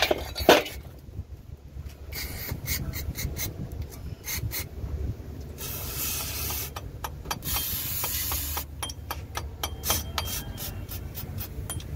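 Aerosol lubricant spray hissing in two short bursts through its straw onto a truck's steering-knuckle kingpin, with a run of quick clicks before and after.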